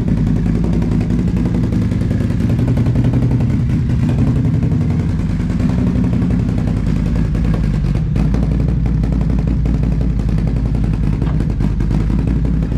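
2022 Can-Am Outlander 1000 XMR's V-twin engine idling steadily through a newly fitted RJWC single slip-on exhaust, heard in a garage.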